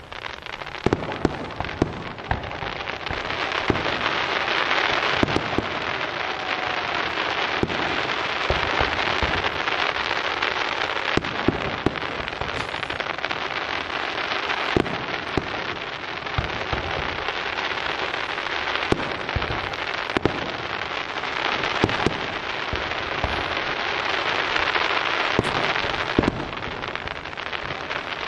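Fireworks display: aerial shells bursting with many sharp bangs over a dense, continuous crackling from the bursting stars.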